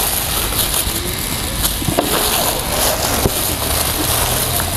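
Rustling and scratching of chicken pieces being tossed and rolled in a dry flour coating, over a steady rushing background noise.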